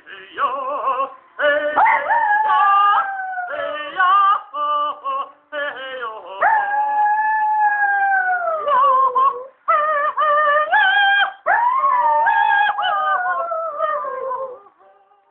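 Chihuahua howling along to music. Two long howls slide downward in pitch over about three seconds each, one starting about six seconds in and the other about eleven seconds in.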